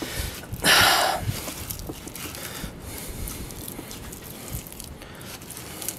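Steel trowel spreading and scraping wet refractory cement against the inside of a metal gas grill base, with a louder rasp about a second in and small irregular scrapes after it.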